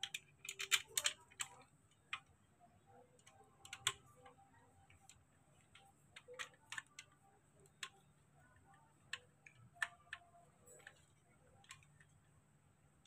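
Screwdriver turning a screw into a baby swing's frame joint: light scattered clicks and taps, a quick cluster in the first second or so, then single ones every second or two.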